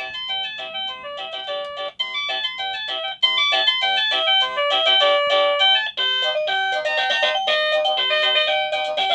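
Papayay wireless doorbell receiver playing electronic chime melodies, quick runs of clean beeping notes. The tune changes a few times as the chime-select button is pressed through its preset chimes.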